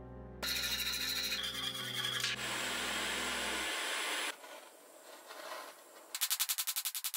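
Rapid rasping and scraping on metal, then the steady hiss of a gas torch heating copper. A fast rhythmic pulsing comes in near the end.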